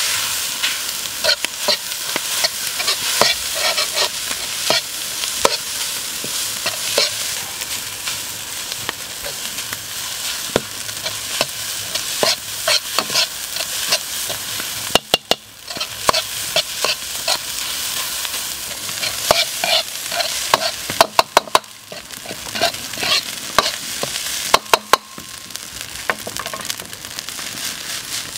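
Fried rice sizzling in a steel wok while a metal ladle scrapes and clinks against the pan over and over. A few sharper, louder knocks of the ladle come past the middle and again near the end.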